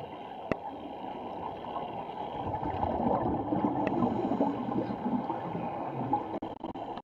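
Scuba regulator exhaust bubbles gurgling, heard muffled underwater, growing louder from about two and a half seconds in. Two sharp clicks, one about half a second in and one about four seconds in.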